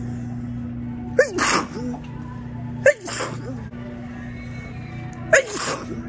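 A woman sneezing three times, each a quick voiced onset breaking into a sharp burst of breath, the sneezes about one and a half to two and a half seconds apart. A steady low hum runs underneath.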